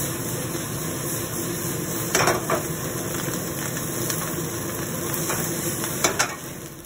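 Fried rice stir-frying in a wok over a gas burner: a steady sizzle and hiss, with the spatula scraping and knocking against the pan, sharpest in two pairs of strokes about two seconds in and again near six seconds.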